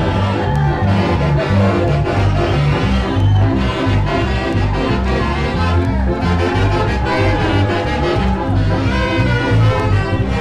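A dance orchestra playing an upbeat Latin carnival dance tune, with brass over a steady bass beat.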